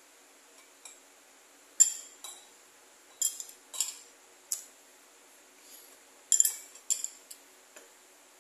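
Metal spoon clinking against a bowl while scooping gulaman jelly and milk: about ten sharp clinks at uneven intervals, the loudest a little under two seconds in and again just past six seconds.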